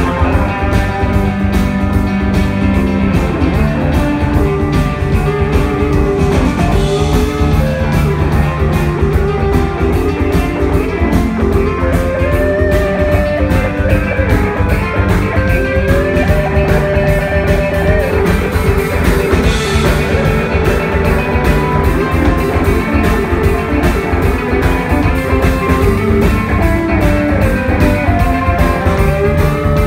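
Rock band playing live without vocals: electric guitars with a lead line of bending notes over bass and a steady drum-kit beat.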